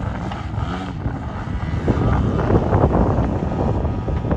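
GP123 engine with tuned exhausts on a Pilot RC Extra 330LX aerobatic model plane, running in flight with its pitch bending up and down and getting louder about two seconds in. Wind rumbles on the microphone underneath.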